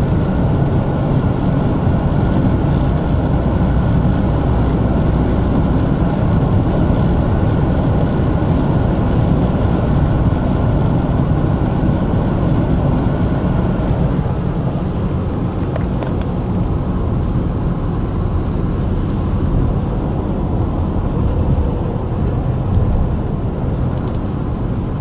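Steady low rumble of a car travelling at freeway speed, heard from inside the cabin: tyre and engine noise through the closed windows, easing slightly about halfway through.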